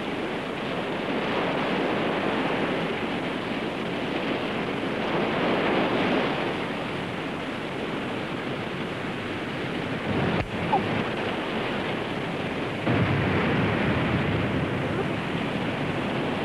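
Steady rushing noise of surf and wind, with a single sharp knock about ten seconds in. The noise gets a little louder a few seconds later.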